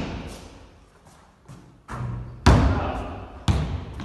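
Basketball bouncing on a hard floor in a large echoing hall: several thuds with a ringing tail. The two loudest come about a second apart, past the middle.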